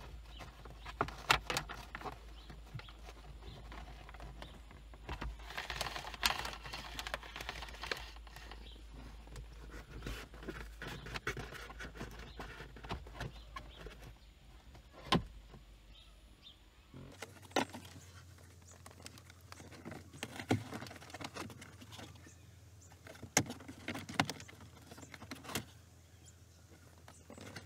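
Hands tucking a dashcam power cable into the gap between the car's headliner and windshield: irregular clicks, taps and rustling of cable against plastic trim. A low steady hum underneath drops away about two-thirds of the way through.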